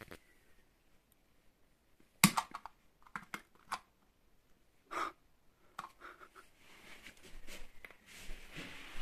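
A handful of short, sharp clicks and knocks, the loudest about two seconds in, followed by a soft rustling hiss near the end.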